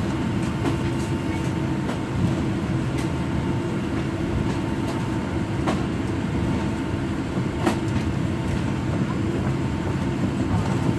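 Cabin noise of a Boeing 787 Dreamliner taxiing: a steady rumble with a faint steady hum, and a few sharp knocks as it rolls along.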